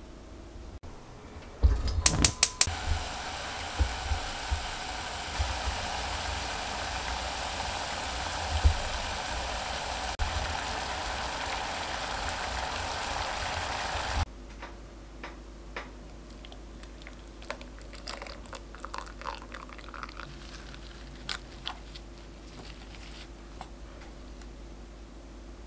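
Sugar-and-water syrup for a mirror glaze boiling in a pot: a few sharp clicks about two seconds in, then a steady hiss and bubbling that stops abruptly past the middle. After that, quieter scattered light clicks and taps from handling the ingredients in a steel bowl.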